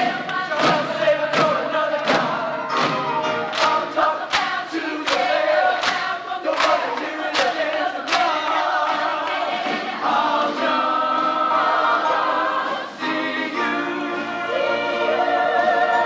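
Show choir singing with band accompaniment, sharp beats on the rhythm for about the first half, then held choral chords.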